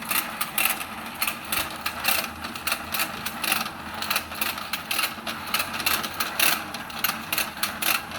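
Battery-powered toy fishing game running: the small motor turning the rotating pond whirs steadily under a rapid, slightly irregular clatter of plastic clicks, several a second.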